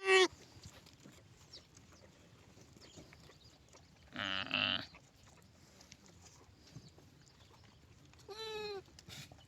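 A lamb bleating three times: a short sharp bleat at the start, a longer quavering bleat about four seconds in, and another bleat near the end.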